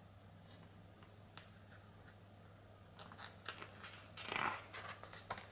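Faint handling of a hardback picture book: a few light clicks and taps, then a page being turned with a short paper rustle about four seconds in, and more small clicks near the end.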